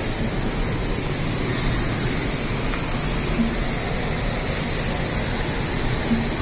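Steady rushing of a waterfall, an even continuous noise of falling water.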